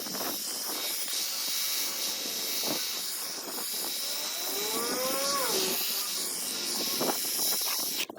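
Ryobi EZ Clean cordless pressure washer spraying water on low pressure: a steady hiss. About five seconds in, a short pitched tone rises and then falls.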